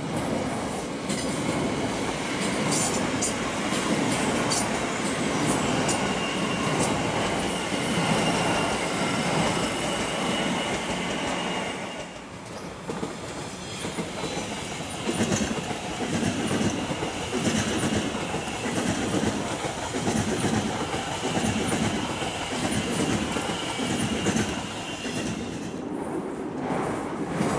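Electric passenger trains running past on the main line, wheels rolling over the rails with a clickety-clack and a thin steady high whine. About twelve seconds in the sound drops and a second train, an Elizabeth line Class 345 unit, takes over with an uneven clatter of rail joints.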